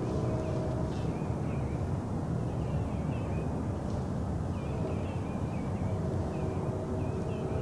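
Autumn woodland ambience: a steady low rumble with a faint hum that comes and goes, and scattered small bird chirps throughout.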